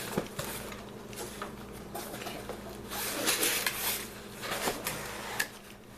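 Packaging being handled and opened by hand: scattered rustling with sharp light clicks and knocks, and a longer rustle about three seconds in.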